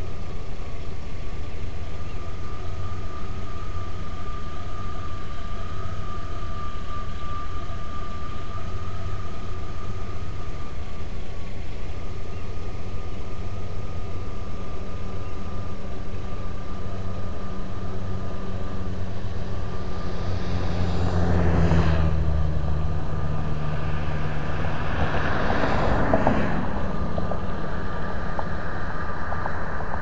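Steady low hum with a thin, faint steady whine above it. Two vehicles pass on the nearby road, one about two-thirds of the way through and another a few seconds later, each swelling and fading.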